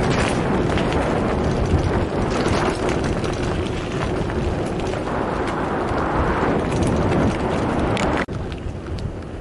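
Wind buffeting the microphone of a camera on a moving mountain bike, over tyres rolling on a gravel track. About eight seconds in, the noise drops suddenly to a quieter rush of wind and tyres.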